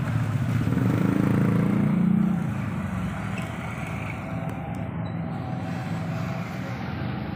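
Low rumble of a motor vehicle engine, swelling about a second in and easing off after two seconds into a steadier background rumble.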